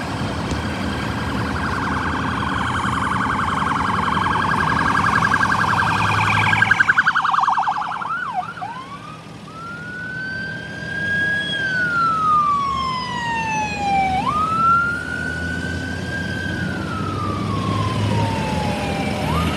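Police car's electronic siren: a fast warbling yelp for the first several seconds, then, after a brief break, a slow wail rising and falling every four to five seconds. A low engine hum runs underneath.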